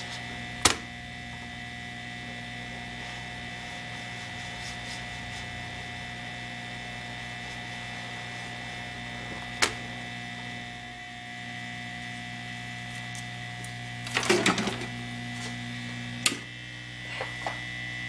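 Heat gun running with a steady hum, melting the solder on a laptop motherboard's DC power jack pins. Sharp taps come through it: one about a second in, another around ten seconds, a short cluster of knocks at about fourteen seconds and a last one soon after, as the board is tapped to free the jack.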